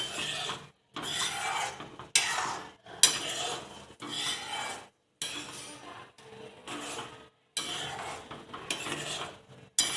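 A spoon stirring and scraping around a pot of simmering kadhi, in repeated strokes about a second long.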